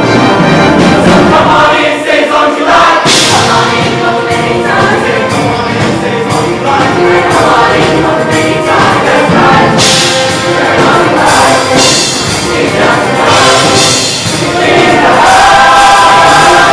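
Show choir singing in full voice, many voices in harmony, over instrumental accompaniment.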